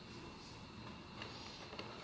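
Faint handling sounds: a short rustle and a couple of light clicks as fingers touch the small cardboard blind boxes in their carton.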